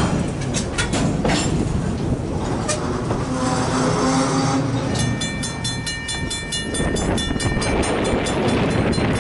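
Loaded freight train of covered hopper cars rolling past, wheels clicking over the rail joints. About five seconds in, a railroad bell starts ringing rapidly and keeps on, over the low rumble of the cars.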